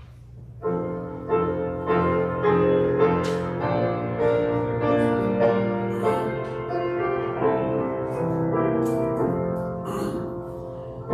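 Piano playing a slow, hymn-like passage of sustained chords and melody, starting about half a second in.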